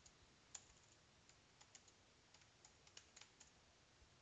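Faint typing on a computer keyboard: a scattering of soft, uneven keystroke clicks.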